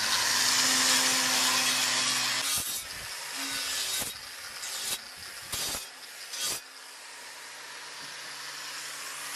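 Electric angle grinder with a soft rag-type abrasive disc cleaning rust off a steel scythe blade before peening. Loud grinding for the first two and a half seconds, then several short bursts as the disc touches the blade again, and from about seven seconds in the motor runs on more quietly.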